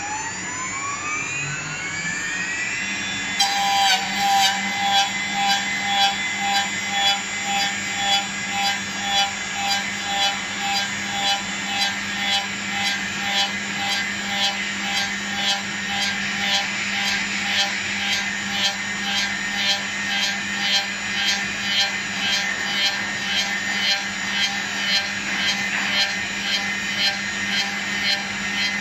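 CNC wooden-handle machine: a spindle motor spins up with a rising whine, then the cutter spindle machines a rotating wooden paint-brush handle. The cutting noise pulses about twice a second over a steady motor hum.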